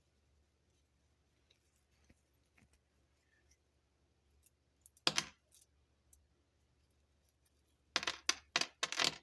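Squishy keychains handled for ASMR, their small metal chains and clasps clicking and jangling: a short clatter about five seconds in, then a quick run of sharp clicks near the end.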